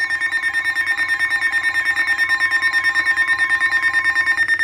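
Several emergency alert devices sounding at once: overlapping alert tones, among them a steady high tone, a warbling tone and a rapidly pulsing beep, with a lower steady tone that stops near the end.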